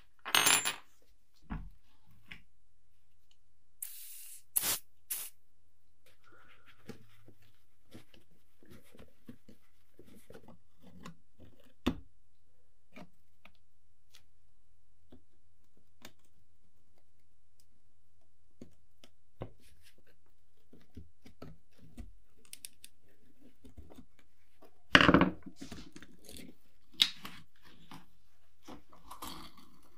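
Small metal calendar parts handled with gloved hands on a wooden table: light clicks, taps and scrapes, with louder metal clatters near the start and again about 25 seconds in.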